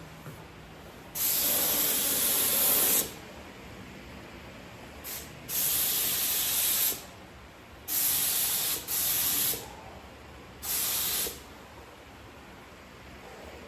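Air spray gun hissing in five short bursts of about half a second to two seconds each, the first the longest, spraying primer onto a car firewall.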